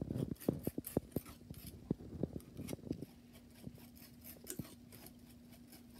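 A brush scrubbing gritty Oxford mudstone watercolour paint on a glass palette: quick scratchy ticks of grit against the glass that die away after about three seconds, leaving a faint steady hum.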